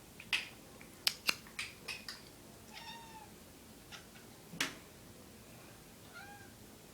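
A cat making short meows that rise and fall, one about three seconds in and another near the end. Sharp knocks and taps from the cats' chase come in a quick cluster early on and once more, loudly, past the middle.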